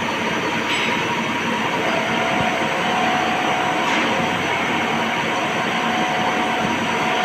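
Steady running noise of CNC machining-shop machinery, with a faint steady whine that comes in about two seconds in.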